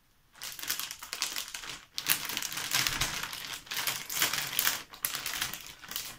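Clear plastic vacuum storage bag crinkling as a slider clip is run along its zip seal, with rapid small clicks as the seal presses shut. It starts about a third of a second in, with a short pause near two seconds.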